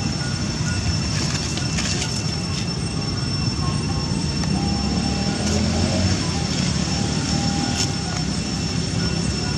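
Steady low rumbling background noise with a few faint, thin high-pitched tones running through it.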